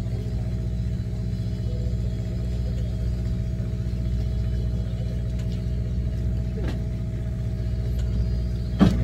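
Fishing boat's engine running steadily, a constant low drone. A single short knock near the end.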